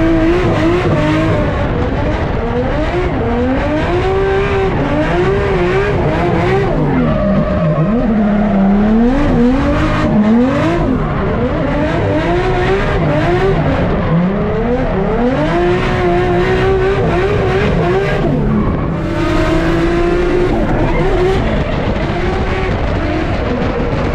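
A drifting Nissan Skyline R33's engine, fitted with individual throttle bodies, revving up and down over and over under load, with tyres squealing and skidding.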